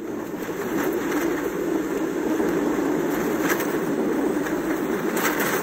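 Steady vehicle hum heard from inside a car, swelling slightly in the first second and then holding even.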